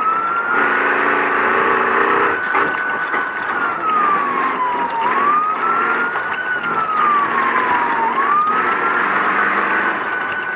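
Race truck's electronic passing siren wailing slowly: the pitch climbs, holds, then sinks and climbs again about three times. This is the warning desert racers sound to tell a slower car ahead to move over. Under it the truck's engine runs under load with steady road and wind noise in the cab.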